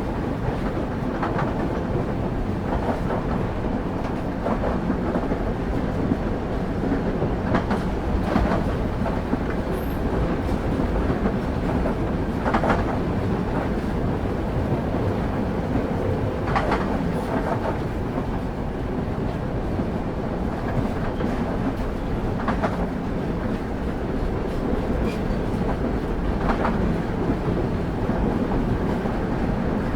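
Steady rumble of a moving train's wheels on the rails, heard from on board a carriage, with a sharp click or a pair of clicks over rail joints every few seconds.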